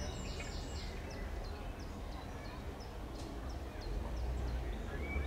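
A small bird singing a quick run of short, high chirps, about three a second, that stops about four seconds in, over a steady low rumble.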